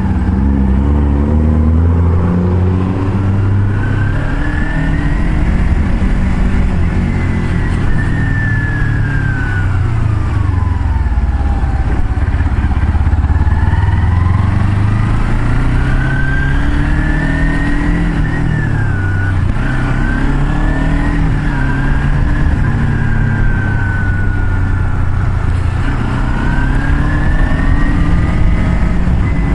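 A car driving on the road: steady engine hum and road noise that shift in pitch as speed changes, with a high whine rising and falling several times.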